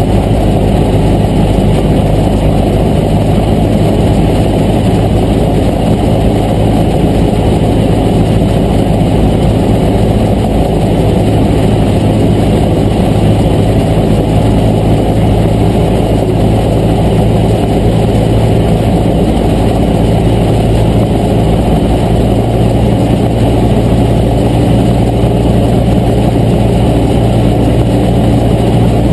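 Cessna 152's four-cylinder Lycoming piston engine and propeller droning steadily in cruise flight, heard loud from inside the cockpit. The pitch steps up slightly about three-quarters of the way through.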